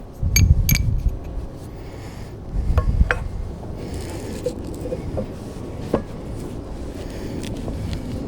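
Metal parts or tools clinking and clanking: two sharp ringing clinks about half a second in, two more around three seconds in with low thuds, and a single one about six seconds in.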